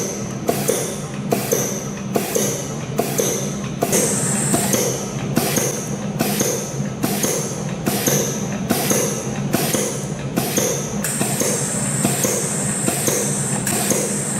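CNC spring coiling machine running in production, making tiny compression springs from 0.07 mm wire: a steady motor hum with an even click about every 0.7 s as each spring is coiled and cut off, each followed by a short high whine.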